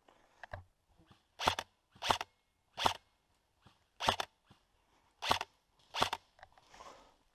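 Airsoft rifle fired in single shots: six sharp cracks spaced irregularly, starting about a second and a half in, with the last near the end.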